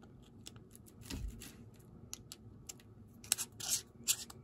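Light clicks and scraping of a flat key being fitted into and turning a screw-in cover cap on a Triggercam 2.1 scope camera's body, with a few louder scrapes a little past three seconds and around four seconds in.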